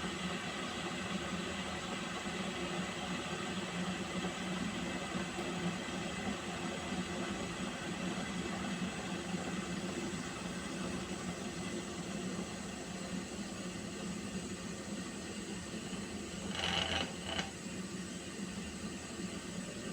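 Water heating in a pot, with a steady hiss and low hum. Near the end come two short, higher-pitched sounds close together.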